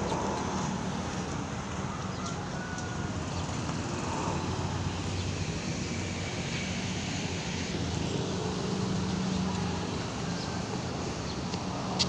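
Steady outdoor road-traffic noise, an even rumble with a low engine-like hum, and a sharp click near the end.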